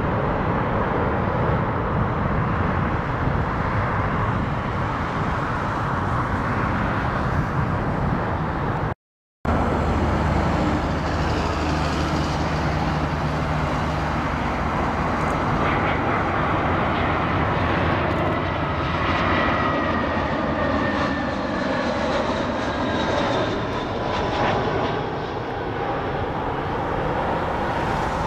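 Jet airliner noise throughout. For the first nine seconds a Saudi Boeing 777-300ER lands on the runway with a steady, noisy rumble. After a sudden cut, a British Airways Airbus A319 approaches and passes low overhead, its engines giving a low hum and a high whine that slides in pitch as it flies by.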